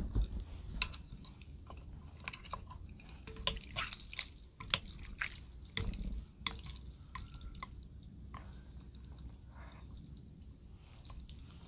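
Wooden chopsticks and a wooden spoon stirring and lifting noodles, fish cake and tomato in a spicy noodle soup. Wet squelches and drips with light clicks against the bowl, busiest in the first six seconds and sparser after.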